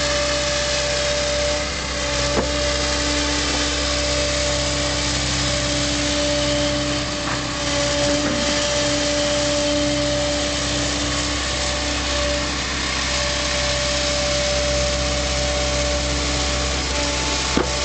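JCB JS 235 long-reach tracked excavator's diesel engine and hydraulics running steadily under work, with a steady whine, and a couple of brief metallic knocks, one about two seconds in and one near the end.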